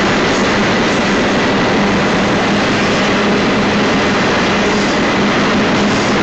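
Freight train of intermodal cars rolling past close by: a steady, loud rumble and rush of steel wheels on rail, with a faint steady hum underneath.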